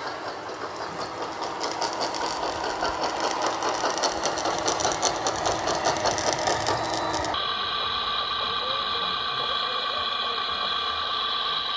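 RC model tracked loader, a CAT 963B replica, driving, with a rapid whirring clatter from its drive and tracks that grows louder. About seven seconds in it cuts to the steady, multi-tone whine of an RC hydraulic excavator's pump.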